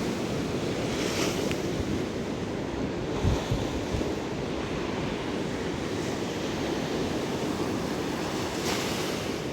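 Rough sea: waves breaking and surging heavily against the shore, a steady wash with a brief louder swell of spray about a second in and again near the end, with wind buffeting the microphone.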